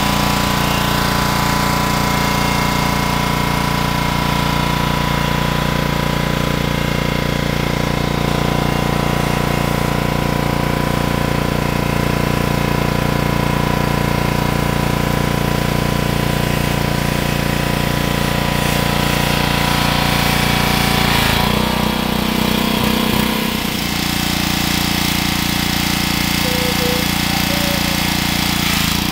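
An engine running steadily at a constant idle-like speed, its tone shifting about two-thirds of the way through.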